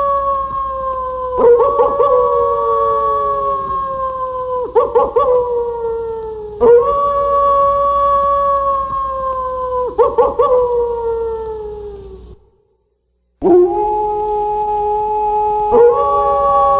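Wolves howling: long calls held on a steady pitch, each sliding down at its end, with new howls starting over the fading ones and two voices at once. The howling breaks off into about a second of silence a little past the middle, then starts again.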